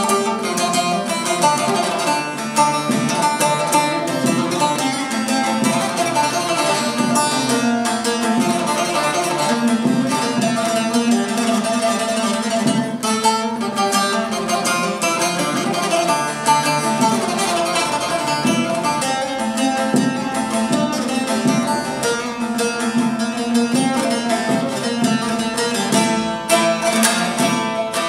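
Bağlama (long-necked Turkish saz) played alone: a quick, continuous stream of plucked notes over a steady low ringing note, the instrumental passage of a türkü between sung verses.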